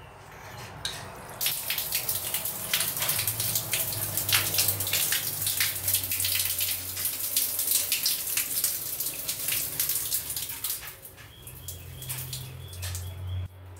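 Gravity-fed rainwater running from a wall tap and splashing. It starts about a second and a half in and eases to a quieter trickle about eleven seconds in.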